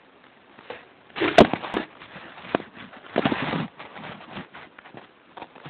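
A small handmade paper toy shotgun being handled close to the microphone: two bursts of rustling and scraping, with a sharp click about a second and a half in, then scattered light taps.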